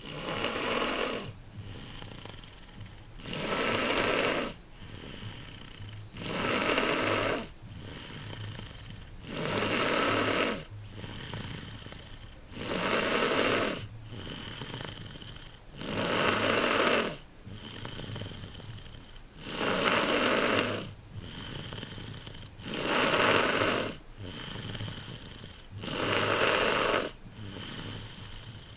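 A person snoring in a steady breathing rhythm: a loud, rough snore about every three seconds, each followed by a quieter breath sound.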